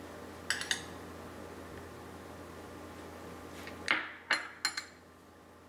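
Cutlery clinking against a ceramic plate: two quick clinks about half a second in, then three or four more about four seconds in.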